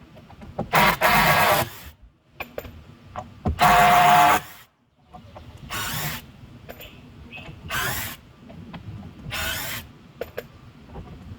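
Power drill run in short bursts, about five times, one burst near the middle longer and carrying a steady motor whine.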